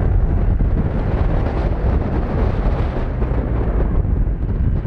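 Heavy wind buffeting on the microphone: a loud, steady rumble of rushing air with no clear engine note.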